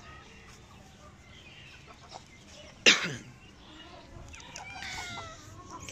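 Aseel chickens clucking and calling softly, with one sudden loud, short sound that falls sharply in pitch about three seconds in.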